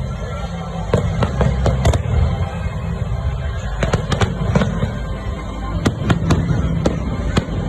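Fireworks going off: a rapid, irregular run of sharp bangs and pops over a continuous low rumble, with music playing underneath.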